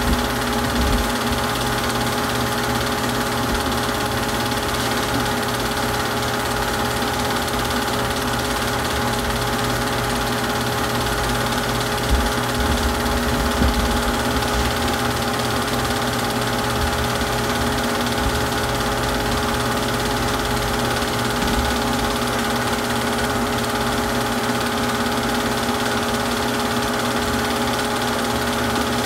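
Super 8 film projector running: a steady mechanical whir with a constant hum.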